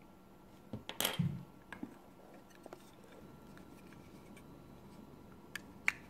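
Handling noise of stacked 9-volt batteries and an oscilloscope probe: a brief scrape about a second in, then a few scattered light clicks as the probe tip and battery snaps knock together.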